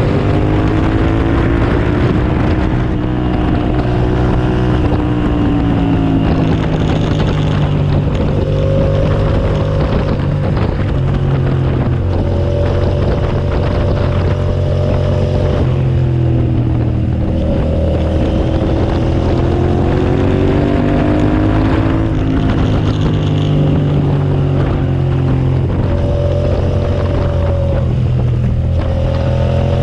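Suzuki SV650S 645 cc V-twin engine running hard under load, its pitch climbing and dropping again and again as the throttle is worked through gear changes and corners, with wind rushing over the microphone.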